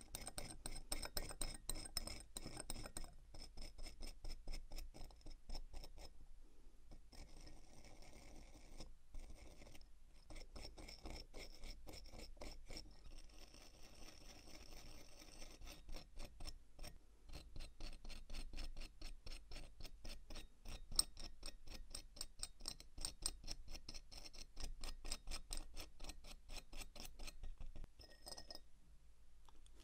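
Rapid, fairly even ticking of a mechanical watch movement, the Orient 46D40 automatic, heard close up, with small metallic clicks from tools handling the watch.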